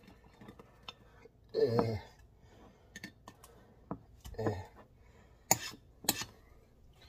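A metal utensil clicking and scraping against a ceramic butter crock as butter is dug out, in a series of sharp ticks, the loudest two about five and a half and six seconds in. Two brief murmurs come in between.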